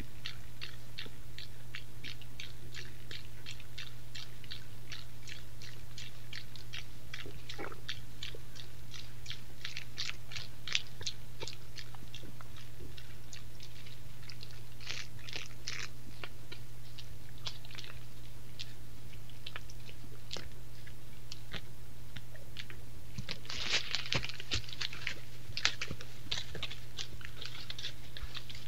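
Red deer grazing and chewing close to the camera: a steady train of sharp crunching clicks, about two or three a second, denser and louder near the end, over a steady low hum.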